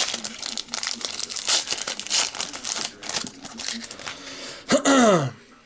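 Foil trading-card pack wrapper being torn open and crinkled by hand, a dense run of crackling. Near the end comes a brief, loud voiced sound, a short hum or word.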